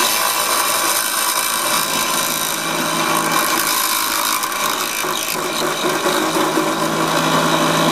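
Drill press running a step drill bit that cuts a hole through a copper disc: a steady motor hum under the noise of the bit in the metal.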